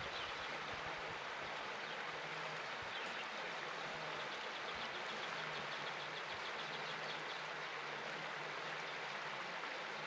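Steady rushing noise of river water, with a faint rapid ticking in the middle.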